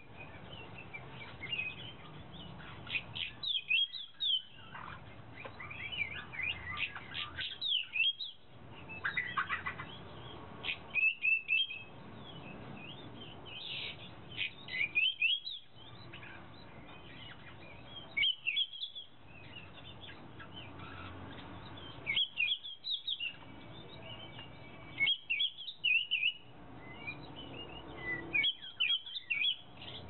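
Wild forest birds chirping and calling in short, quick phrases, with brief gaps every three to four seconds.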